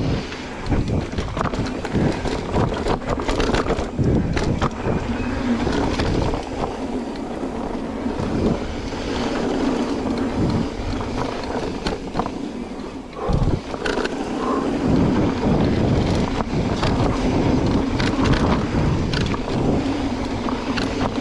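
Mountain bike riding fast down dirt singletrack: tyres rolling over dirt, the bike clicking and clattering over bumps, and wind buffeting the microphone.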